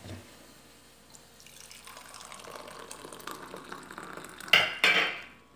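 Coffee pouring from a thermos flask into a cup, a stream of liquid that grows louder as it runs. It ends with two sharp knocks about four and a half seconds in.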